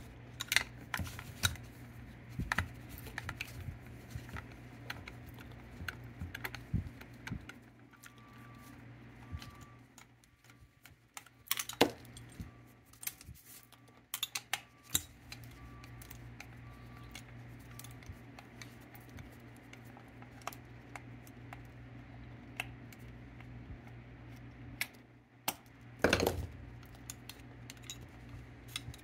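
Scattered light metallic clicks and clinks as a nut driver and a steel pinball drop-target assembly are handled while the nuts holding its coil are taken off, with a louder cluster of clicks near the end.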